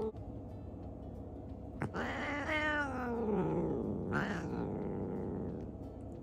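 Domestic cat yowling: a long, drawn-out call that falls in pitch, then a shorter second call about two seconds later.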